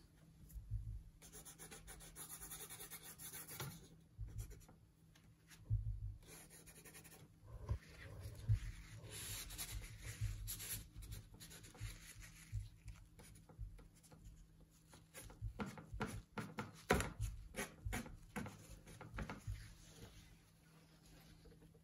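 Paintbrush strokes on an oil-painting panel: faint scratchy scrubbing and dabbing that comes and goes, with a cluster of light taps and knocks about three-quarters of the way through.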